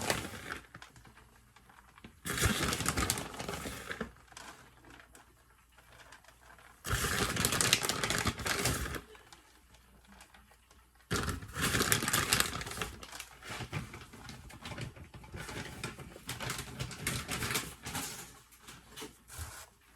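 Shredded cheese being handled and sprinkled onto stuffed baked potatoes: four bursts of light crinkly rustling a few seconds apart, with quieter pauses between.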